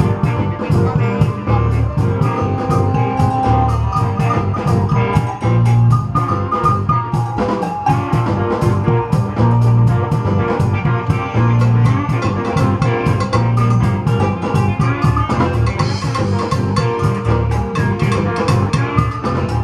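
Live band playing, with a drum kit keeping a steady beat under the other instruments.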